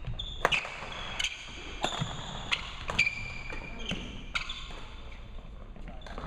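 Doubles badminton rally: rackets striking the shuttlecock in sharp hits about every half second to second, with sneakers squeaking on the wooden gym floor between them.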